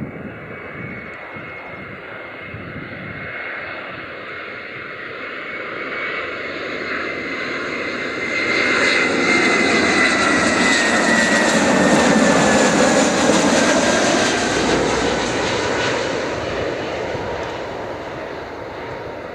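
Airbus A320-211 airliner passing on its landing approach, its CFM56 jet engines making a roar with a whine. The sound grows louder over about ten seconds, peaks, then fades, while the whine slowly falls in pitch as the plane goes by.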